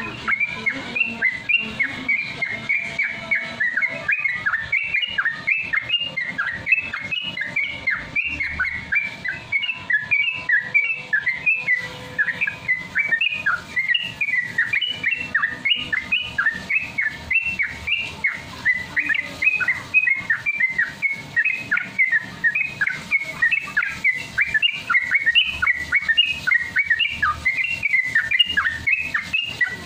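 Yellow-vented bulbul (trucukan) song: a rapid, unbroken run of short chirping whistles, about three or four notes a second, in the continuous 'ropel' style used as a lure to set a caged bird singing.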